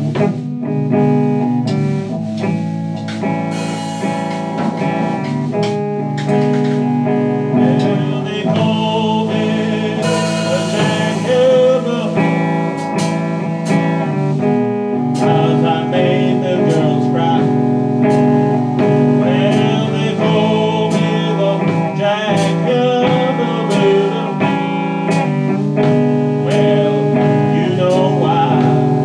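Slow blues played on guitar: a live jam with a steady low line under wavering lead notes.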